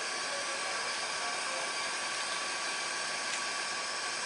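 Steady, even hissing whir from the equipment of a passenger train standing at the platform, with a few faint steady tones in it and no change in level.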